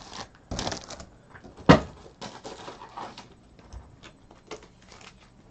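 Trading cards and foil card-pack wrappers being handled: bursts of rustling and crinkling with small clicks, and one sharp knock about a second and a half in, the loudest sound.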